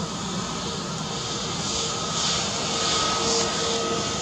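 Airbus A320neo's CFM LEAP-1A turbofan engines running as the jet taxis along the runway: a steady jet rumble and hiss with a whine that grows louder about halfway through.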